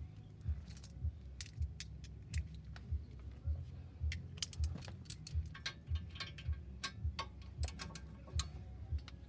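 Metal sockets and hand tools clinking and rattling in short, irregular clicks. Under them runs a steady low thump, about one and a half beats a second.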